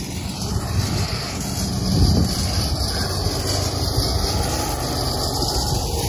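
Small ride-on vehicle engine running steadily as it rolls across rough ground, with a brief low bump about two seconds in.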